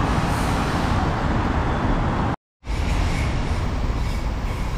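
Steady road traffic noise, tyres on a wet road, cutting out for a moment about halfway through.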